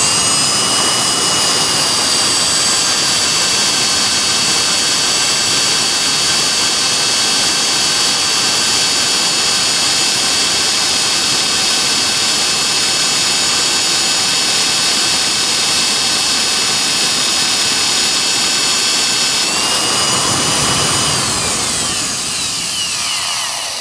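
Electric drill running steadily under load, boring holes in 1/4 inch steel plate with a high whine. The bits are really bad and slow to cut. Near the end the pitch shifts, then falls as the motor winds down.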